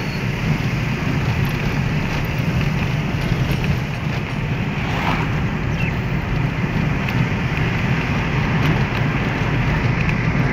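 Steady engine and road rumble with wind noise, heard from inside the cabin of a moving car.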